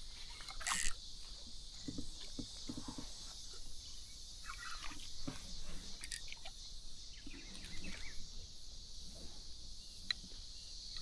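Faint scattered knocks and small splashes of a hooked yellow peacock bass being fought from a kayak, over a steady high-pitched hiss. One louder rushing burst comes about a second in.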